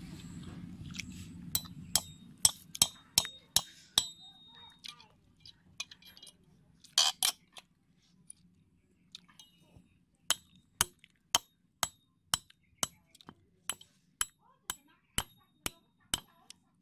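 Claw hammer knocking repeatedly on a short hollow wooden log: sharp separate blows, about two or three a second, with a louder double blow about seven seconds in and a quieter, sparser stretch before it.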